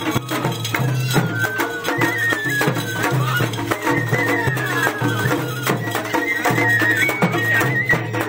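Japanese festival hayashi music: a high melody stepping from note to note over steady drumming and percussion strokes.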